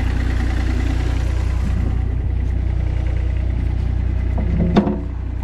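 Mini skid steer's small gas engine idling steadily. A single sharp knock comes near the end.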